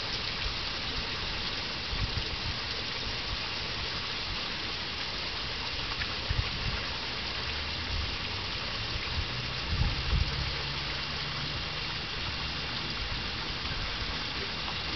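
Steady rushing of running water, with a few brief low thumps about two, six and ten seconds in.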